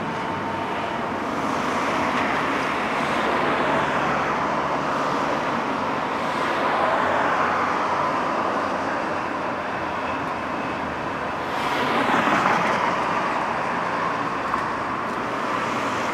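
Road noise of a slow convoy of hearses and police motorcycles on a motorway: a continuous tyre and engine rush that swells and fades as each vehicle goes by. The loudest pass comes about twelve seconds in.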